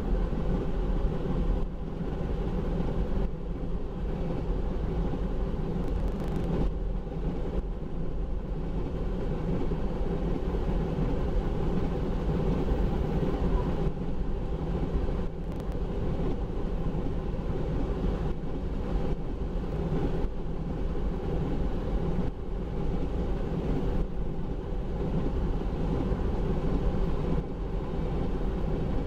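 Empty oil tank cars of a freight train rolling past, a steady rumble and rattle of steel wheels on the rails.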